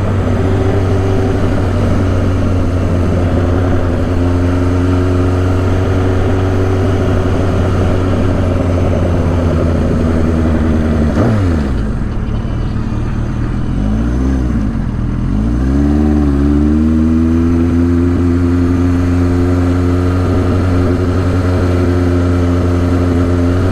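1983 Suzuki GS1100E's inline-four engine running under way, its pitch rising slowly as it pulls. It drops sharply about eleven seconds in, dips and climbs again a few seconds later, then holds a steady note to the end.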